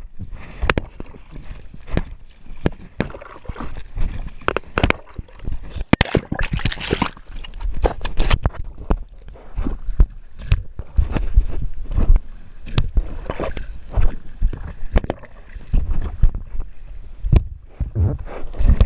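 Kayak paddling on a lake: the paddle dipping and splashing in the water, with many sharp knocks and clicks and wind rumble on the microphone. A louder splash comes about six to seven seconds in.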